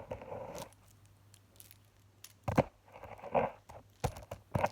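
Small toy skateboard fidget being handled: several sharp clacks, with short bursts of rustling and scraping between them.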